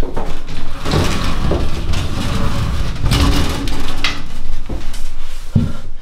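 Rustling and knocking from a handheld camcorder being shifted about right against the microphone, with a dull thump near the end.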